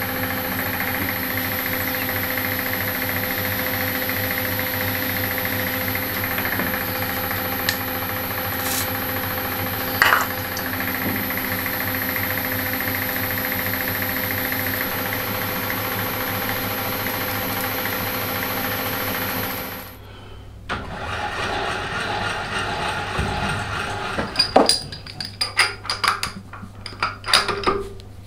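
Milling machine running steadily while drilling holes in a 10 mm aluminium plate, a constant motor hum and whine with a single click about ten seconds in. The machine stops about twenty seconds in, followed by a series of light metallic clinks and rattles.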